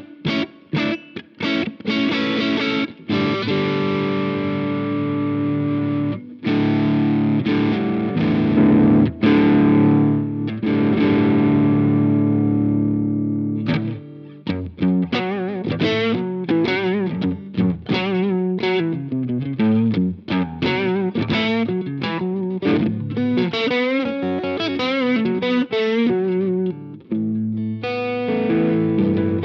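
Overdriven electric guitar played through a Jeds Peds Wasteman, a boosted Tube Screamer-style overdrive pedal. Distorted chords are struck and left ringing with short breaks between them. About halfway through it changes to a lead line of single notes with string bends and vibrato.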